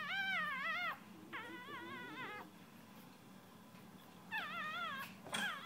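Pomeranian puppies crying in high, wavering whimpers: about four cries, each under a second or so, with short pauses between.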